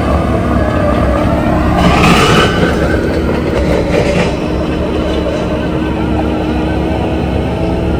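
Bobcat skid steer running hard under load while its Coneteks 2.13M hydraulic grinding attachment chews through stumps and soil, a steady heavy machine noise with a droning tone. A brief harsher, brighter surge about two seconds in.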